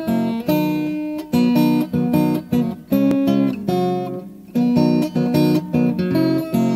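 Background music on acoustic guitar: chords strummed and plucked, a new chord struck every half second or so.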